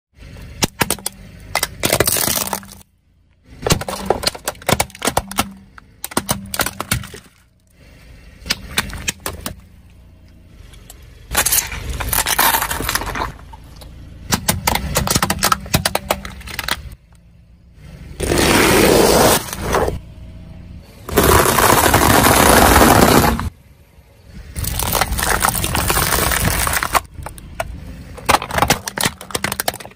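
A car tyre crushing plastic toys and bottles on asphalt: plastic crackling and cracking with sharp snaps, in several takes of a few seconds each, split by abrupt cuts.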